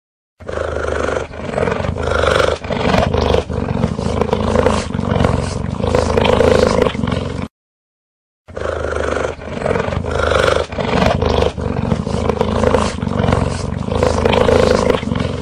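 Cheetah vocalising: a continuous low rumbling call that swells and fades in quick pulses. The same stretch of about seven seconds plays twice, with about a second of silence between.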